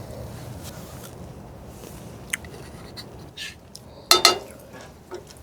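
Metal cooking utensils clinking and scraping against pans and dishes, with a few sharp clatters, the loudest about four seconds in, over steady low background noise.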